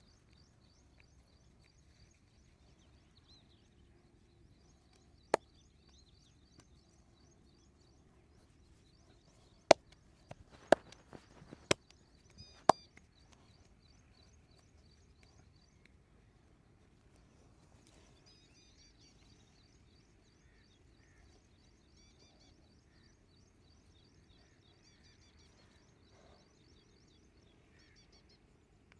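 Sharp snaps from a massage, once about five seconds in and then four in a row about a second apart. Small birds chirp in quick series in the background.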